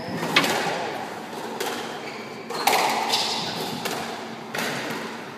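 Squash rally: sharp hits of racket on ball and ball on the court walls, about one a second, each ringing briefly in the enclosed court.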